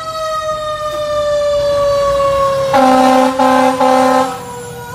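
Fire engine responding: its siren wails with a slowly falling pitch, and its air horn gives three short blasts about three seconds in.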